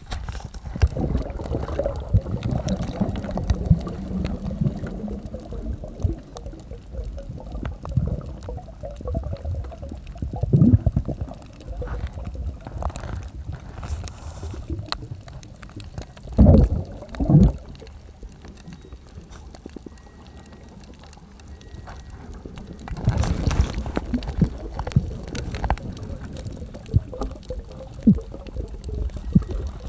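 Underwater sound picked up through a soft waterproof camera housing: a low, dull wash and sloshing of water moving around the camera as it swims over the reef, with a few knocks, the loudest two close together just past the middle.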